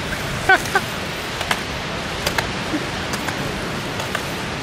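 Steady hiss of wind on the microphone outdoors, with two short pitched chirps about half a second in and a few sharp clicks scattered through.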